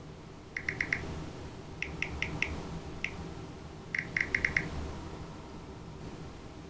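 Smartphone keyboard tap sounds: short high blips in quick runs of four or five with pauses between, as keys are pressed on the touchscreen.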